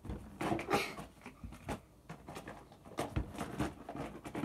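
Irregular light knocks and rustling as plastic slime containers are handled and fitted into a box.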